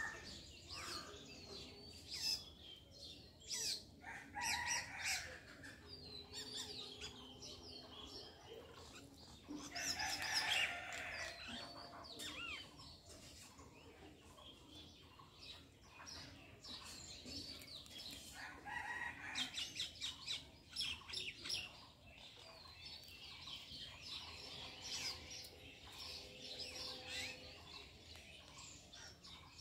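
Small birds chirping in clusters of quick calls, with domestic chickens clucking now and then.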